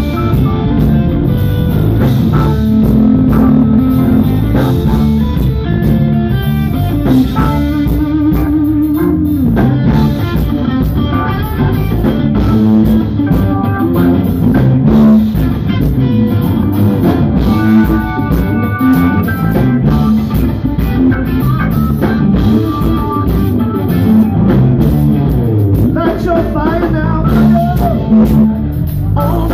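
Live band playing loud: electric guitar over a drum kit and organ, with no pause.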